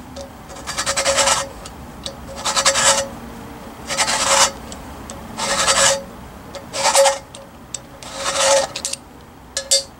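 Neway hand-turned valve seat cutter scraping metal as it cuts the 30-degree top angle on an exhaust valve seat in a Jeep 4.0 cast-iron cylinder head. Six short scraping turns come about a second and a half apart, followed by two light clicks near the end.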